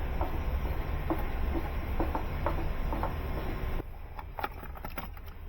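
Light, irregular clicks and ticks as the plastic riser tube of a water softener is handled and cut down, over a low steady rumble that cuts off about four seconds in.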